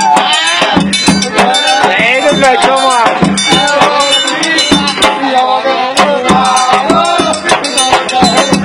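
Music with singing and a steady percussive beat played loud through a car sound system, with a heavy pulsing bass.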